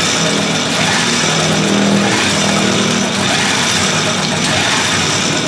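Homemade hand-crank generator, a bicycle chain and gears driving a motorcycle stator and rotor, being cranked steadily to charge a 12-volt battery: a continuous mechanical whirring with a low hum that swells about two seconds in.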